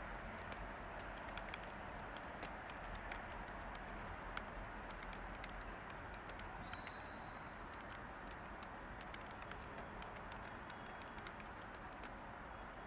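Light computer keyboard typing: scattered, irregular key clicks over a steady hiss of background white noise. A short, thin high tone sounds briefly about seven seconds in.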